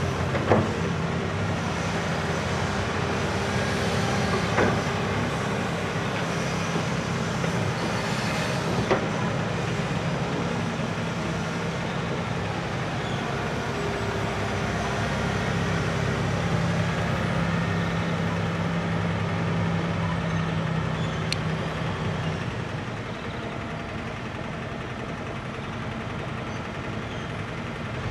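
Heavy diesel machinery, a crawler excavator and tractors with tipper trailers, running steadily while loading. There are three sharp knocks in the first nine seconds, and the hum drops a little in the last few seconds.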